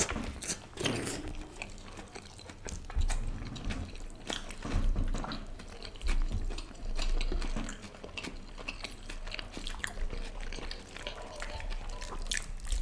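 Close-miked eating of tandoori chicken: chewing and lip-smacking with many small wet clicks, and fingers tearing the roasted chicken apart. A few low knocks sound in the middle.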